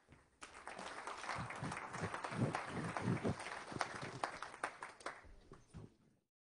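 Audience applauding, a dense patter of many hands clapping that starts about half a second in and dies away near the end.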